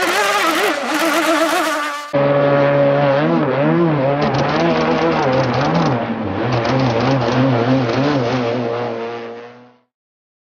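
Small nitro glow engine of an RC model hydroplane running at high revs, its high buzzing pitch wavering up and down as the boat runs across the water. There is an abrupt change to a second run about two seconds in, which fades out near the end.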